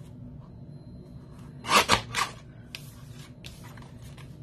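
Paper trimmer blade sliding through cardstock: a short, loud slicing scrape about two seconds in. Then come a couple of fainter rustles as the paper is moved.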